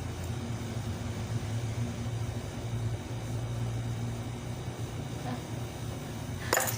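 A steady low mechanical hum, with one sharp click near the end.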